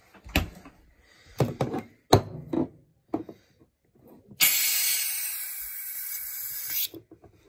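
Aerosol whipped-cream can sprayed in one steady hiss of about two and a half seconds, which cuts off sharply. Before it come a few short knocks and clunks from handling the can on the counter.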